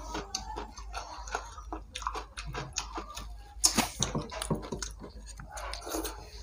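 Close-up eating sounds from hands-on eating: chewing, lip smacks and finger licking, with fingers rubbing rice and curry off the plates. Short, irregular clicks and smacks, a loud cluster about halfway through.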